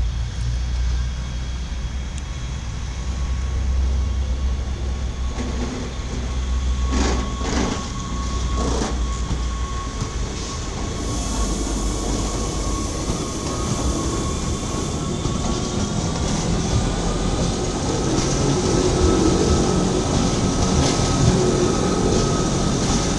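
Wengernalpbahn electric rack-railway train running past close by. A steady motor whine rises slightly in pitch and grows louder over the second half, and a few wheel clicks come about a third of the way in.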